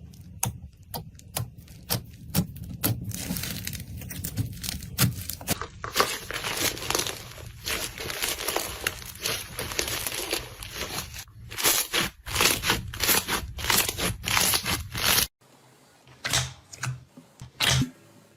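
Slime being worked by hand, giving a dense run of crackling, popping and sticky tearing sounds. About fifteen seconds in the low background hum drops away and the crackles come in shorter, separate bursts.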